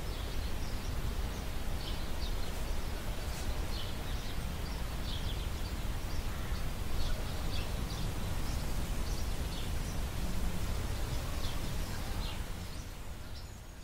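Outdoor field recording of birds chirping, short high calls scattered irregularly throughout, over a steady low rumble and hiss. The sound fades out near the end.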